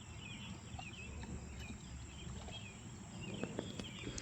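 Faint outdoor ambience: many soft bird chirps over a steady high insect drone and a low rumble, with a few light ticks about three and a half seconds in.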